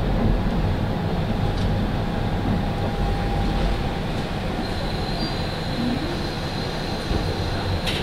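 Running noise of a KiHa 40 diesel railcar, a steady low rumble from wheels and engine as the train slows to a stop at a station. A high, steady squeal from the brakes comes in about halfway through.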